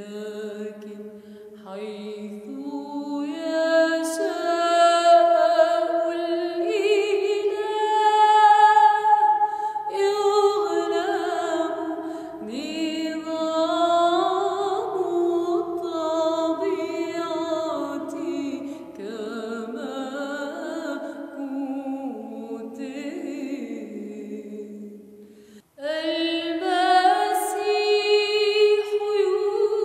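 A woman singing a Byzantine Christmas hymn in Arabic, in long phrases of held notes that step up and down, with a brief pause for breath about 26 seconds in.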